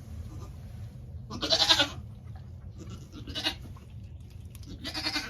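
Goat bleating three times, the first call the longest and loudest, over a low steady hum.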